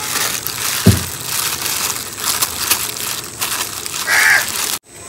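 Plastic bags worn as gloves crinkling and squelching as spice paste is rubbed into a whole raw chicken, with a low thump about a second in. A brief loud call sounds near the end.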